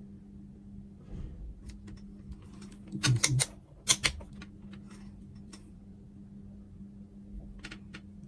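Sharp clicks and taps of hard objects being handled, with a tight cluster of loud ones about three to four seconds in and a few fainter ones around it. A steady low hum runs underneath.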